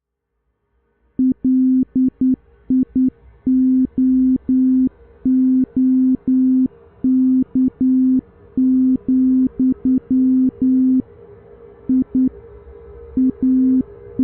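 Synthesized sound effect: a single low electronic beep starting about a second in and pulsing on and off in an irregular pattern of short and long beeps. Beneath it is a faint hum that slowly swells.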